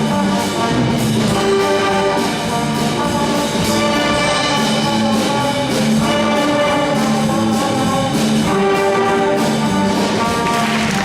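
Junior high school concert band playing, brass to the fore over a steady beat.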